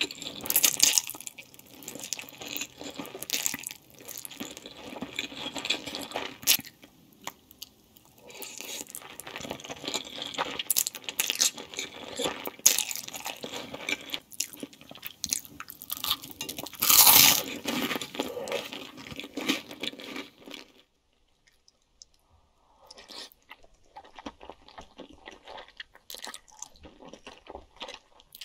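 Close-miked eating of spaghetti in meat sauce: wet chewing and lip smacks with sharp clicks, louder in a few bites. The sound drops out about three-quarters of the way through, then softer chewing picks up again.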